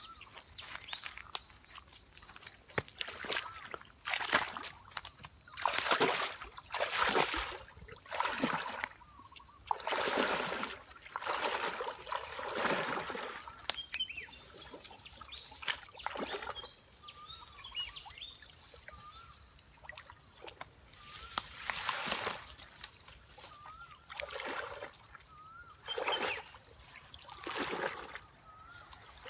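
Water splashing and sloshing in about a dozen irregular strokes, with a steady high insect drone behind.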